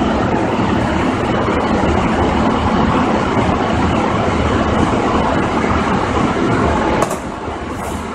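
Steady rushing hum of a laminar-airflow compounding hood's blower fan, with a sharp click about seven seconds in and a fainter one just after.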